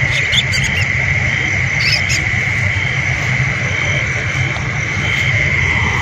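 Night chorus of frogs and insects: a steady high-pitched trill with frogs calling underneath, and a few brief rustles or clicks near the start and again about two seconds in.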